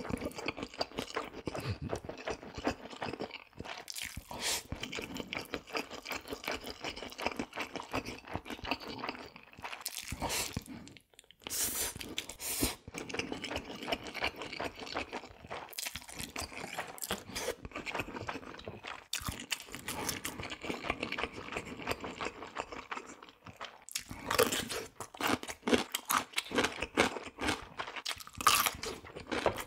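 Close-miked eating: a steady run of chewing and crunching with many short wet clicks, pausing briefly about a third of the way through.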